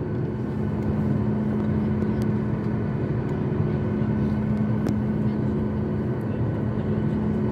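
Steady cabin noise of a Boeing 737 airliner standing on the ground with its jet engines idling: a constant hum with a low steady tone.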